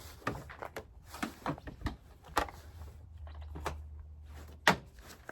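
Truck bed tent fabric being handled and spread out, rustling and scraping in irregular strokes, with one sharp knock about four and a half seconds in.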